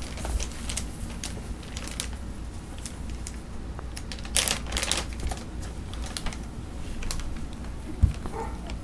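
Irregular light clicks and rustling, with a denser rustle about halfway through and a single thump near the end.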